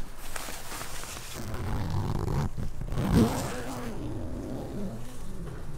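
Tent door zipper being opened and nylon tent fabric rustling as the flap is pushed aside, with a louder low sound about three seconds in.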